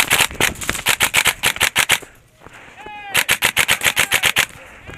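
Airsoft guns firing on full auto: two long rapid bursts of evenly spaced shots, about ten or more a second, the first running about two seconds and the second starting about a second later, with a brief shout in the gap.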